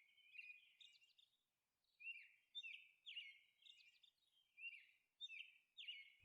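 Faint birdsong: short high chirps repeated throughout, in small clusters.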